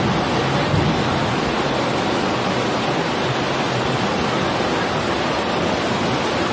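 Heavy downpour of thunderstorm rain: a loud, steady hiss of rain.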